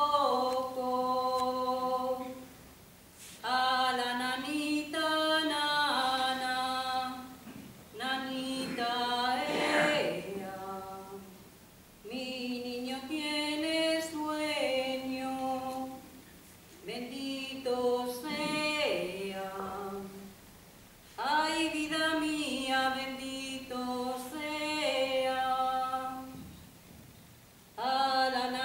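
A woman singing a Spanish lullaby (nana) unaccompanied, in slow phrases of long held notes with short breaks between them.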